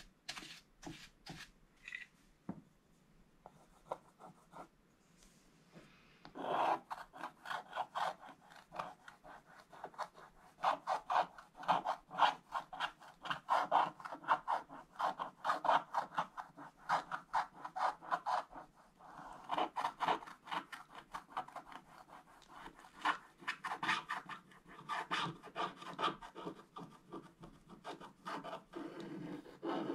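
Wooden stylus scratching the black coating off a scratch-art page in short, rapid strokes. There are only a few light strokes for the first several seconds, then steady, dense scratching from about six seconds in.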